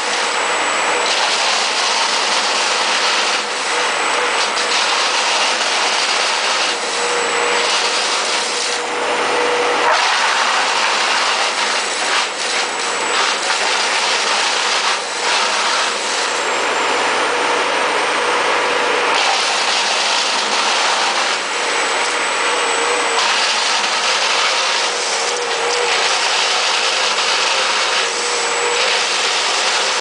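Engine-driven disc wood chipper running under load as logs are fed in one after another, chipping them and blowing chips out of its chute. A loud, steady mechanical din with a steady whine, broken by frequent short cracks.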